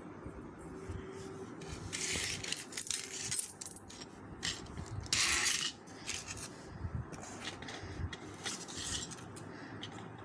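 Small clock parts being handled: the plastic clock movement and its screw fitting clicking, tapping and scraping in short scattered bursts.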